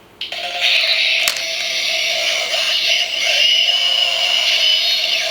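Bandai DX Mega Ulorder, Kamen Rider Necrom's transformation bracelet toy, playing its electronic transformation sound effects through its small speaker: a sustained synthesized tune with an electronic voice. A sharp click comes about a second in.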